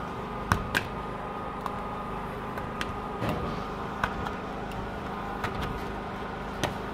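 Plastic squeegee working over wet window film on glass, pushing the water out from under it, with a few sharp clicks and taps. A steady background hum runs underneath.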